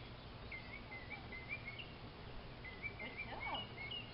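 A bird singing faintly: runs of short, quick chirping notes, over a steady low hum of outdoor background noise.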